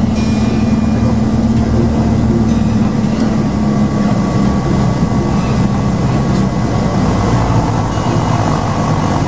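Light aircraft's piston engine and propeller droning steadily, heard from inside the cockpit on final approach to a runway; the engine note eases slightly after about six seconds.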